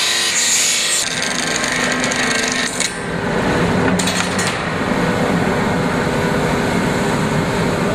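Large circular cut-off saw slicing through GRP roof-tile profiles on a pultrusion line, a loud high hiss that stops about a second in. The line's machinery then runs steadily with a hum, and brief high rasps come around four seconds in.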